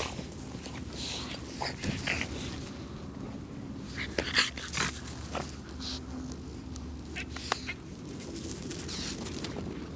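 Dogs whimpering and yipping in short bursts, with a cluster of sharper sounds about four to five seconds in.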